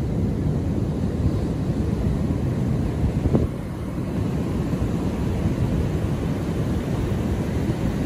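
Ocean surf breaking on a beach, heard as a steady low rumble with wind buffeting the microphone, and a brief thump a little over three seconds in.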